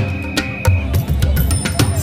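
Music with a steady drum beat, about three strikes a second, over sustained tones.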